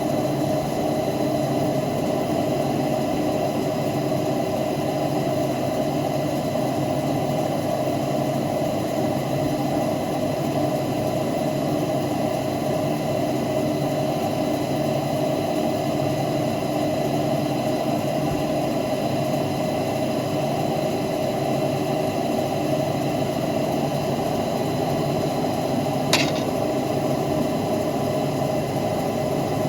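CNC lathe running during pinion machining: a steady machine hum with several fixed tones, and one sharp click near the end.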